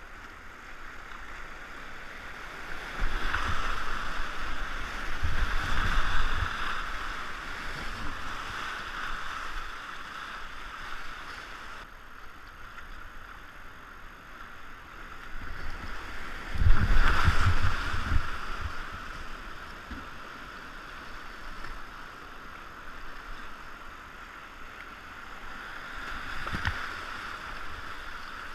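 Creek rapids rushing and splashing around a whitewater kayak, heard from a camera on the boat, with louder surges of splashing and low rumble a few seconds in, strongest a little past halfway, and again near the end.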